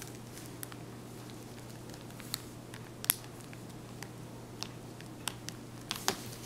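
Scattered small clicks and taps of a cell phone's plastic housing and parts being fitted back together by hand, the sharpest about three seconds in, over a faint steady hum.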